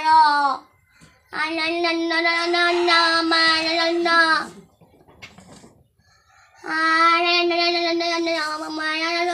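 A boy singing long held notes at a steady pitch, in phrases of about three seconds each with short breaks between them.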